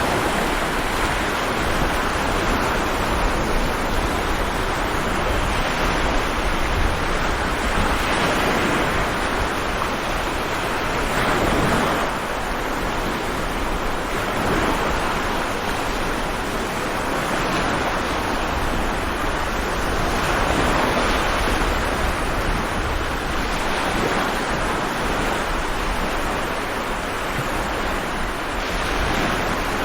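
Stormy sea waves breaking and washing in continuously, the rushing noise swelling and easing every few seconds.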